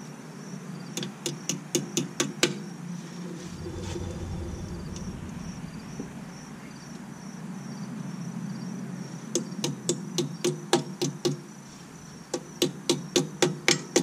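Runs of sharp metal taps, about four a second, as pliers work a 3/16 by 2-inch cotter pin through the spindle nut of a trailer wheel hub: one short run about a second in, and a longer series in the second half.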